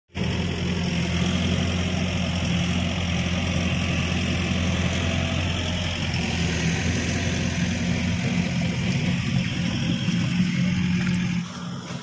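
Excavator's diesel engine running steadily at a constant speed. The sound drops away suddenly near the end.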